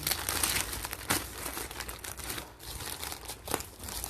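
Plastic packaging crinkling and rustling as it is handled and opened, with a sharper crackle about a second in and another near the end.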